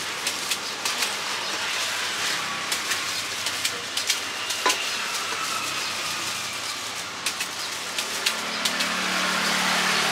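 Steady street noise with passing traffic, broken by scattered sharp clicks of a crinkle-cut knife slicing fruit into a steel bowl; a low engine hum comes in about eight seconds in.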